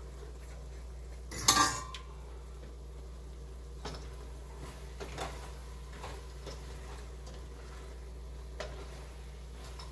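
A cooking spoon clanking and scraping against a stainless steel pot while food is stirred: a loud clatter about a second and a half in, then a few lighter taps. A steady low hum runs underneath.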